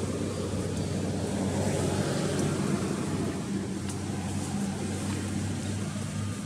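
A steady low hum from a running motor, with a rumble underneath and two even drone tones that hold throughout.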